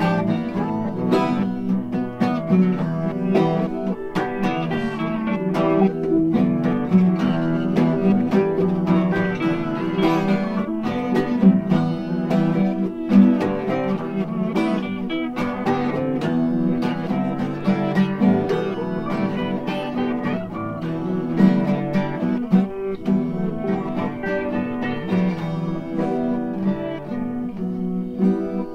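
Background music: acoustic guitar playing a busy run of plucked notes.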